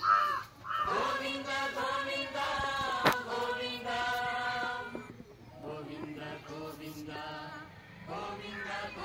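A voice chanting in long, drawn-out held notes, louder for the first five seconds and quieter after, with one sharp click about three seconds in.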